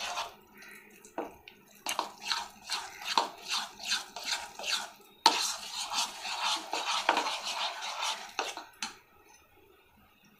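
Metal fork stirring thick flour-and-semolina batter in a bowl: rhythmic scraping and tapping strokes, about three a second, beginning about two seconds in and stopping about a second before the end.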